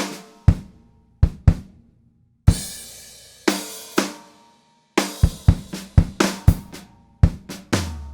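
Sampled acoustic drum kit from Steinberg's Groove Agent 5 playing a pattern: kick and snare hits with crash cymbals about two and a half and five seconds in, and a quick run of hits near the end.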